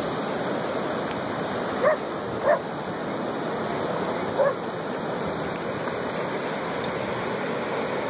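A dog gives three short barks, two close together about two seconds in and one more a couple of seconds later, over the steady rush of ocean surf.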